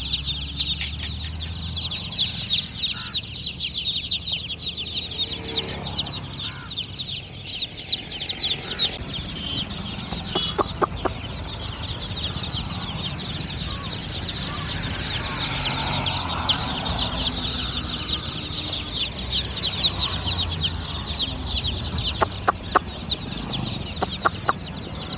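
A group of baby chicks peeping continuously: many rapid, overlapping high chirps. There are a few sharp clicks partway through and again near the end.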